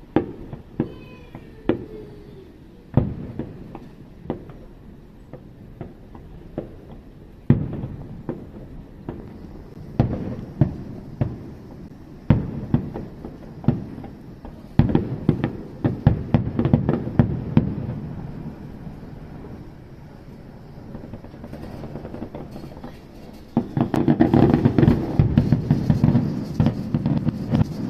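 Fireworks going off: a string of separate sharp bangs, each trailing off, that turns into a dense, louder crackling barrage near the end.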